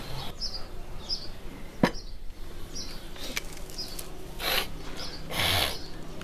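A small bird chirping, short high chirps repeated about once a second. There is one sharp click about two seconds in and two short rushes of noise near the end.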